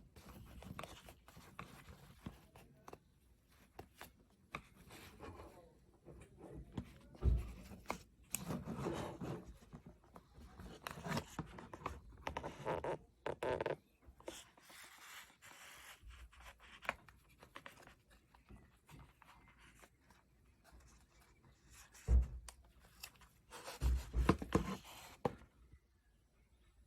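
Handling noise close to the microphone: irregular scrapes, rustles and clicks, with a few dull thumps, the loudest about 22 seconds in.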